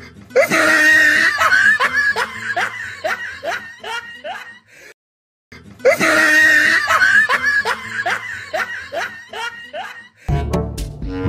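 A comic laughing sound effect, a run of short snickering laughs about three a second, played twice over with a half-second silent break between. Brass music starts near the end.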